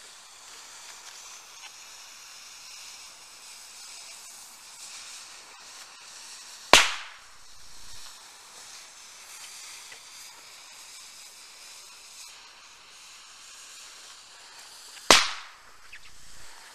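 Small firecrackers set into eggs, going off in turn along a slow-burning fuse: two single sharp bangs about eight seconds apart, one about a third of the way in and one near the end, with a faint steady hiss between them.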